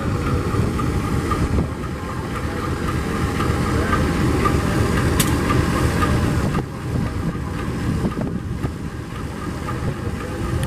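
Diesel-electric locomotive idling while standing at the head of a ballast train, a steady low rumble, heavily buffeted by wind noise on the microphone. A single sharp click sounds about five seconds in.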